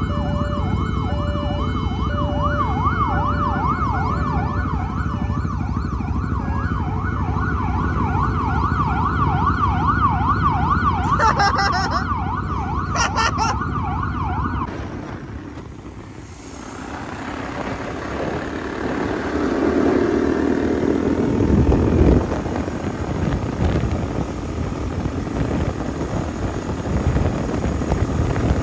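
Police siren yelping, a fast up-and-down wail, over the low rumble of idling engines, with two louder blasts over it near the middle. The siren stops about halfway through and gives way to a motorcycle's engine and wind noise as it rides along a highway.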